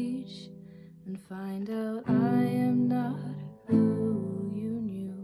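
Acoustic guitar strumming a few ringing chords, with a voice holding long sung notes over them near the close of the song.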